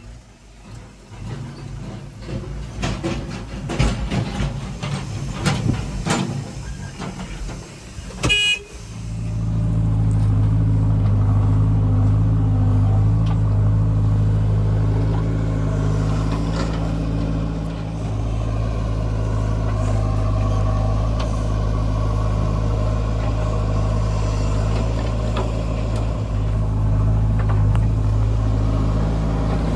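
Irregular knocks and clatter, then a short horn toot about eight seconds in. After that a diesel engine of the backhoe or tractor runs loud and steady at a constant speed.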